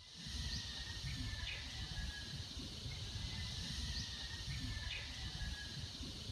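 Outdoor ambience: a steady hiss with an uneven low rumble and a few faint, short bird chirps.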